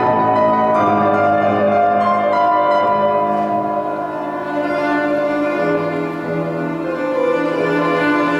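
Violin and grand piano playing a classical duet, the violin drawing long bowed notes over the piano accompaniment.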